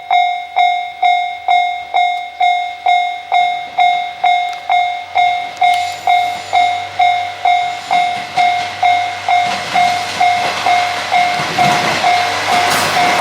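Japanese railway level-crossing alarm dinging steadily, a little over two dings a second. A train approaching and passing builds from about halfway through, and its rumble and wheel noise grow until they nearly cover the dinging near the end.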